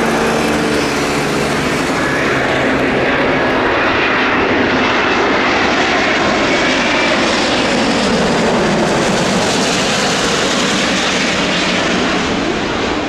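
An Airbus A350's Rolls-Royce Trent XWB turbofans on final approach, passing low overhead: a loud, steady jet roar. A humming tone sounds over the first few seconds, and a falling, sweeping pitch comes as the aircraft goes by.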